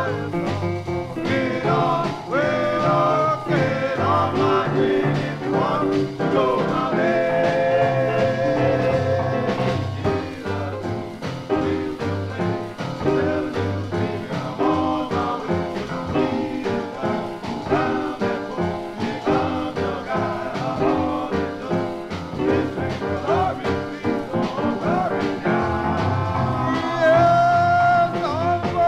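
A 1953 vocal group record transferred from a 78 rpm disc: voices singing over a band with a steady beat.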